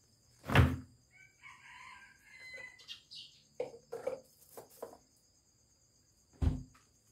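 A rooster crows once, faintly, from about one to three seconds in. A loud thump comes just before it and another near the end, with a few light knocks in between.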